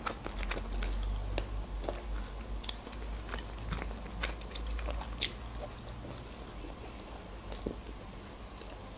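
A person chewing and biting into fried chicken wings, heard close up, with many small sharp clicks scattered throughout.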